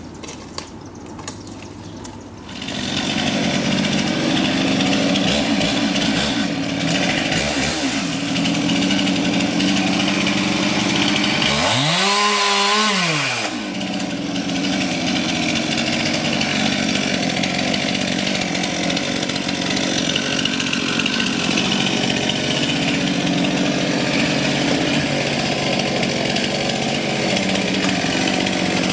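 Chainsaw running and cutting wood, coming in loud about two and a half seconds in. Around twelve seconds its pitch rises and falls once as the saw revs.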